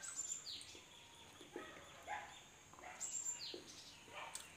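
A bird chirping faintly in the background: two short calls that fall in pitch, about three seconds apart. Soft mouth and chewing sounds from people eating momos come in between.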